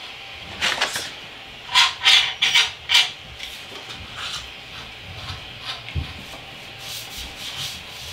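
Cardstock sliding and scraping between the nozzle and the bed of an Ender 3 3D printer, in a run of short rubbing strokes, loudest in the first three seconds and fainter after. It is the feel test of paper-method bed leveling: a light scrape means the nozzle gap is right.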